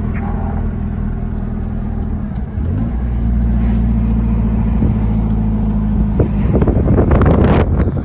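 Holden Colorado ute's engine and aftermarket exhaust running under way. A steady note steps up as it accelerates about three seconds in, with a burst of louder noise near the end.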